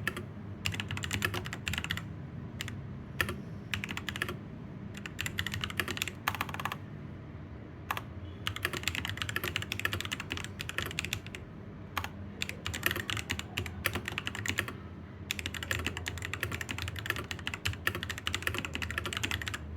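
Mechanical keyboard typing on a Ziyoulang K68 BT fitted with Akko V3 Pro Cream Blue switches: runs of rapid key clicks lasting a second or three, broken by short pauses.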